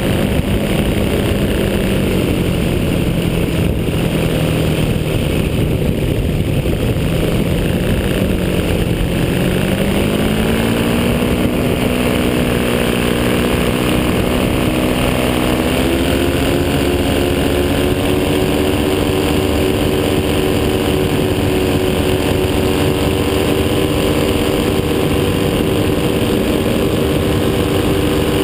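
Powered-paraglider (paramotor) engine and propeller running in flight. The engine note drops and then climbs back during the first half, steps up about halfway through, and then holds steady.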